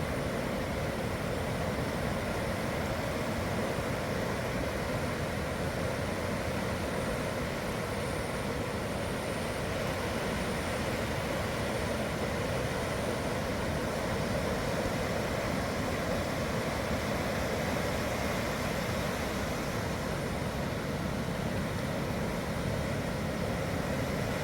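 Steady roar of sea surf at high tide, a continuous rushing noise with no breaks.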